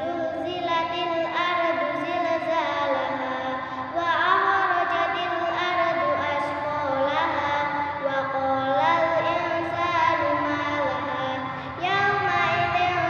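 A young girl's solo voice singing a slow, ornamented melody, holding long notes and sliding between pitches, with short breaks about four seconds in and near the end.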